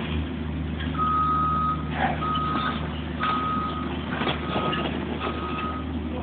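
Reversing alarm of a site vehicle beeping five times, about once a second, over the low steady hum of its engine.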